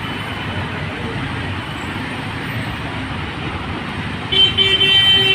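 Steady road traffic noise on a busy city street, with a vehicle horn honking in several short toots near the end.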